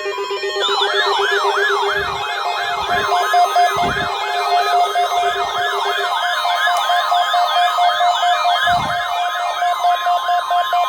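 Electronic emergency alert warning signal: a fast wailing siren sweep, about three a second, over a steady buzzing tone that stops about halfway through. A steady high alarm tone joins a few seconds in, and a few short low thuds sound now and then.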